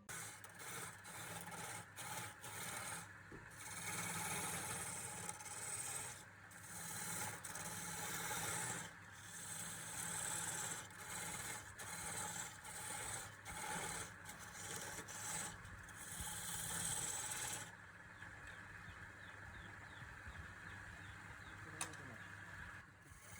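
Wood lathe running while a tool works against the spinning wood, rasping in repeated passes with short breaks. About three quarters of the way through the rasping stops and the lathe's steady motor hum carries on alone.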